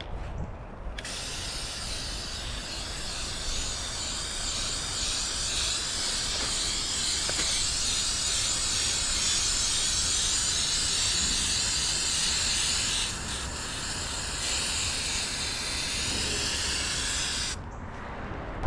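Paint spraying: a steady high hiss from the spray nozzle. It starts about a second in, eases briefly about two-thirds of the way through, and cuts off near the end.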